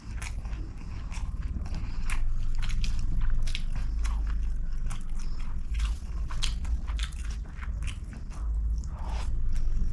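Close-miked chewing of a mouthful of rice and chicken eaten by hand: a steady run of wet smacks and small clicks.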